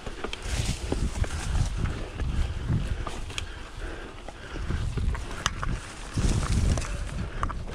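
Scott Genius 750 mountain bike riding down a dry, rocky dirt trail: tyres rumbling over the ground, with irregular low thumps and sharp clicks and clatters from stones and the bike rattling over bumps.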